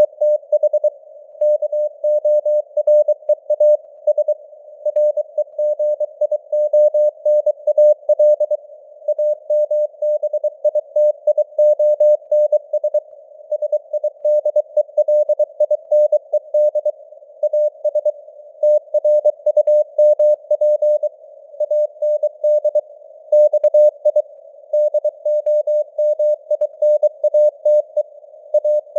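Morse code (CW) sent at 23 words per minute: a single steady beep tone keyed on and off in quick dots and dashes, over simulated radio band noise, with the signal strength fading in and out (QSB).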